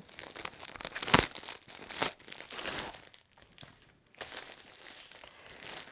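Plastic packaging crinkling as a USPS mailer envelope is handled and the plastic bag inside is pulled out. A sharp, louder rustle comes about a second in, and there is a brief lull a little past the middle.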